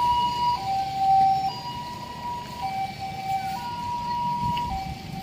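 Ambulance siren sounding a two-tone hi-lo wail, the high and low notes alternating about once a second. It becomes fainter about a second and a half in as the ambulance drives away.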